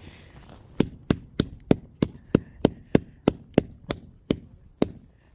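An alarm clock being struck over and over: about a dozen sharp knocks, roughly three a second, beginning about a second in.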